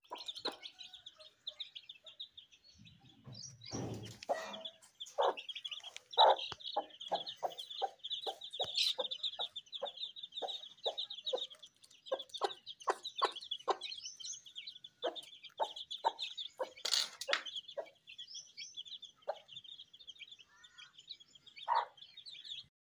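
Aseel hen clucking in a run of short calls, one to two a second, while her newly hatched chicks peep constantly in high, rapid chirps. A brief scuffing noise comes about four seconds in.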